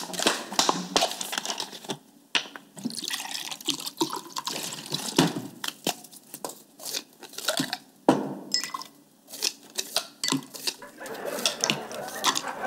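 Water poured from a plastic bottle into a glass, with many crackles and knocks from the plastic bottle and the glass being handled on the table.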